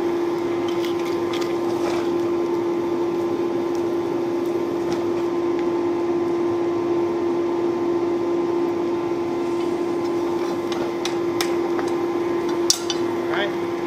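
Forge blower running with a steady hum and an even rush of air. A single sharp click near the end.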